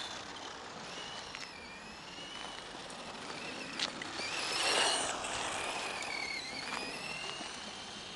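Radio-controlled car's motor whining, its pitch rising and falling as the throttle is worked, with a single sharp click just before the middle and a rush of noise as the car passes close just under halfway through.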